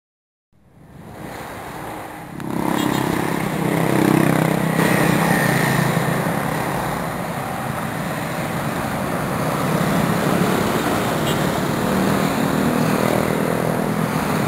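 Road traffic: a steady wash of passing motor vehicles with a low engine hum. It fades in over the first two seconds and then holds steady.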